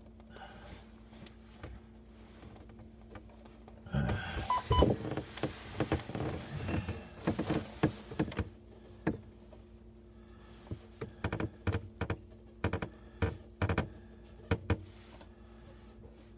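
Clicks, knocks and rattles of gloved hands handling the plumbing fittings under a sink: a busy run of them about four seconds in, then single clicks spaced out, over a steady low hum.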